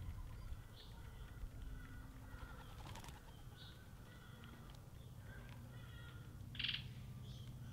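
Garden birdsong: faint chirps and short song phrases from several small birds over a low steady rumble. A brief, louder chirp stands out near the end.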